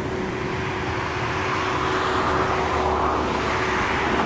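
Boeing 737-800's twin CFM56 jet engines at climb power, a steady roar as the airliner climbs away after takeoff, swelling slightly in the middle, with a low steady tone under it.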